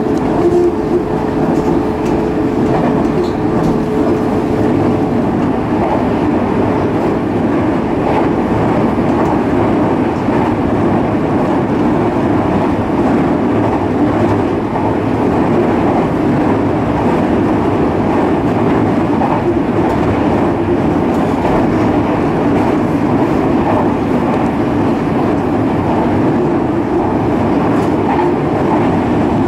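Electric local train running along the track, heard from on board: a steady rumble of wheels on rail. A steady whine is heard for about the first five seconds.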